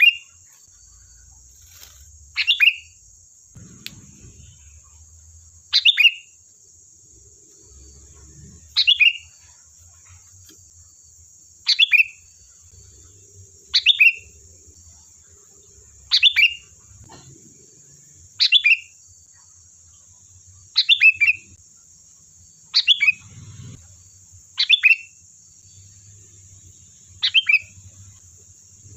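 Sooty-headed bulbul (kutilang) giving a short call over and over, about every two to two and a half seconds, each a quick downward-sweeping note.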